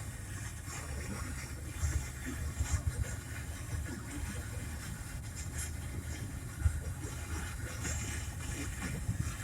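Low, steady car rumble of engine and road noise, with scattered light thumps.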